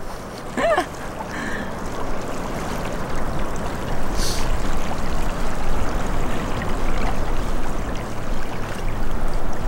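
Calm lagoon water lapping at a sandy shore, a steady watery hiss, with wind rumbling on the microphone from about four seconds in.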